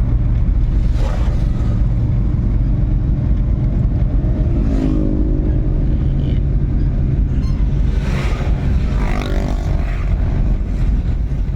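A motor engine running steadily at close range, with a heavy low rumble; its pitch shifts briefly about five seconds in and again near the eight-second mark.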